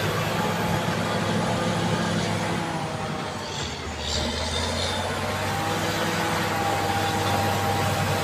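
Caterpillar D7G bulldozer's diesel engine running steadily under work, its revs sagging about three seconds in and picking back up a second later, with a few faint clanks as it eases off.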